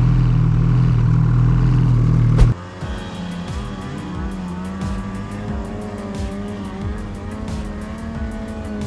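Snowmobile engine idling steadily, cut off abruptly by a click about two and a half seconds in; background music with a steady beat follows.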